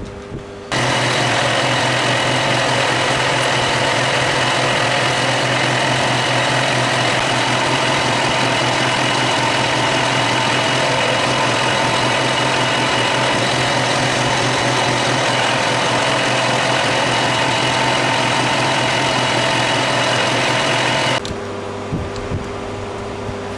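Green Colchester Student metal lathe switched on about a second in and running steadily, a constant geared whine over a low hum, while turning a steel hex-stock bolt held off-centre in the three-jaw chuck. The sound cuts off suddenly a few seconds before the end.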